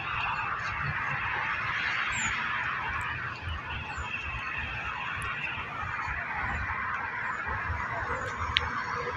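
Outdoor ambience dominated by a dense, steady chorus of bird calls, with a few short high chirps and a low rumble underneath.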